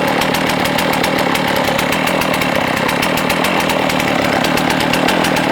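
Stihl MS660 two-stroke chainsaw running steadily, its engine speed holding even throughout.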